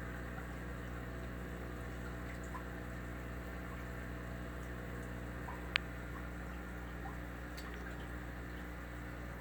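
Steady hum of a large aquarium's pump and filter with faint water trickling and a few small drips, and one sharp click about six seconds in.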